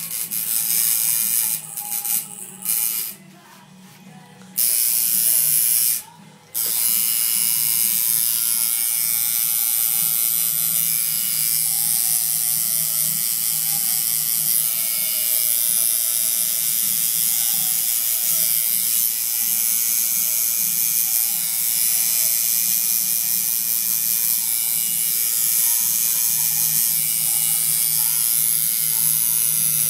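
Coil tattoo machine buzzing steadily as it needles ink into skin. It cuts out twice in the first few seconds and then runs on without a break.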